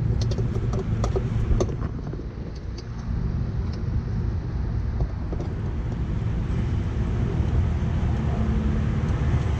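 Steady low rumble like a motor vehicle running somewhere near, with a few light clicks and taps in the first two seconds from hands working a plastic fog light connector in the wheel well.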